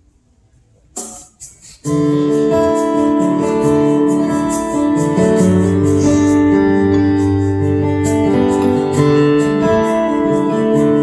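A few short clicks, then about two seconds in the instrumental intro of a song starts and carries on: keyboard and guitar playing sustained chords.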